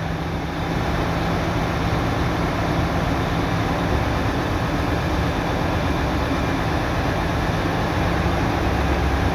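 Mercedes-Benz Actros truck's diesel engine running steadily at idle, a little louder from about a second in.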